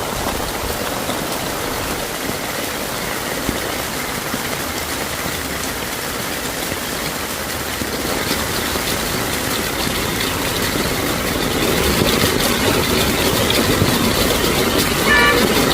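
Vehicle engines running in slow traffic amid a steady hiss of heavy rain, growing louder about twelve seconds in. A short high tone sounds briefly near the end.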